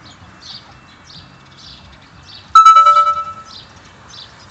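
Audible warning alarm of an ungated railway level crossing pulsing about twice a second. About two and a half seconds in, a single loud metallic ding, the loudest sound here, rings out and dies away over about a second.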